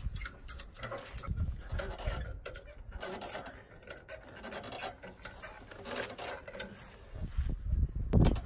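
Ratchet tie-down strap holding an ATV on a trailer being worked by hand: irregular clicks from the metal ratchet and rubbing of the strap webbing, with a louder knock near the end.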